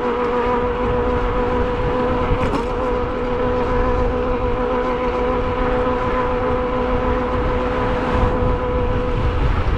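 Electric bike motor whining at a steady pitch while cruising, over a steady low rumble of wind and road noise.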